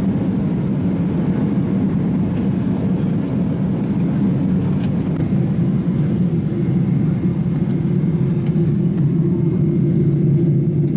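Steady airliner cabin noise in cruise flight: a constant low rumble heard from inside the passenger cabin.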